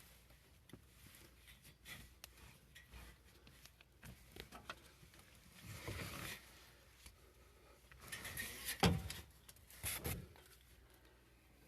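Faint rustling and handling noises from work on sheet-metal ductwork, with two sharp knocks near the end.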